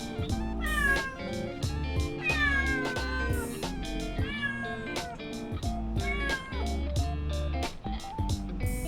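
Kittens meowing, about four calls that each fall in pitch, over background guitar music with a steady beat.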